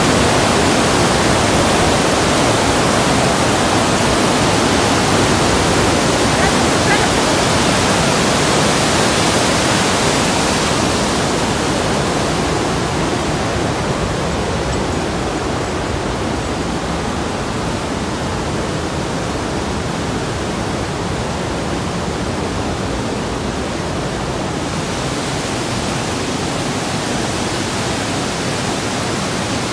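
Snowmelt-swollen mountain waterfall rushing over boulders in a steady whitewater cascade. The sound grows duller and a little quieter from about eleven seconds in, then brightens again near the end.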